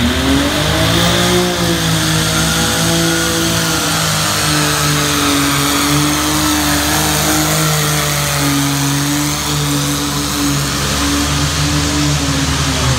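Small turbocharged indirect-injection diesel engine of a pro stock diesel pulling garden tractor, working hard as it drags a pulling sled. The revs climb over the first second, then hold nearly steady under load.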